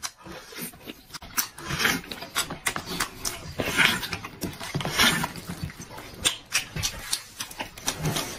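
A man sucking and slurping meat off a red-braised alligator head, with smacking and chewing noises coming in irregular bursts.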